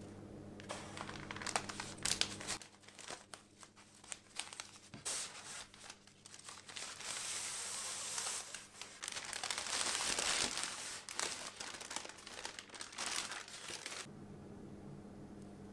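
Baking paper crinkling and rustling with sharp crackles as it is unwrapped from a rolled cake. It is loudest past the middle and stops near the end.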